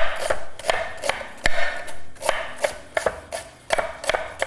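Knife slicing a whole unpeeled ginger root, a quick run of sharp cutting strokes about four a second, with a short pause about two seconds in.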